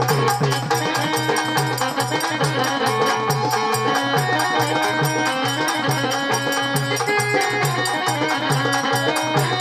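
Marathi folk music: a fast, steady percussion beat under a sustained reedy melody, an instrumental passage between sung lines.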